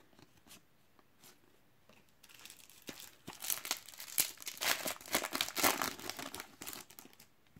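Shiny foil trading-card packet being torn open and crinkled, a dense crackling that starts about two seconds in and lasts about five seconds, after a few faint taps.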